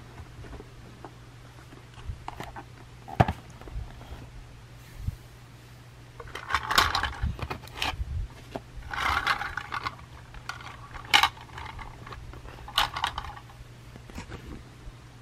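Plastic Plarail toy train cars being handled and set down on a tatami mat: scattered sharp clicks and knocks, with several short bursts of scraping and rustling.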